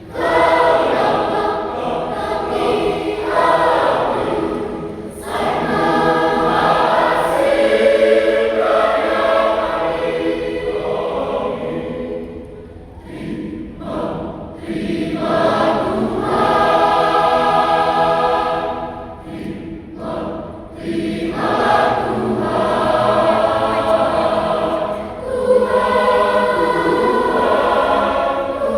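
Parish choir singing an offertory hymn, in long phrases with short breaks about twelve seconds in and again about twenty seconds in.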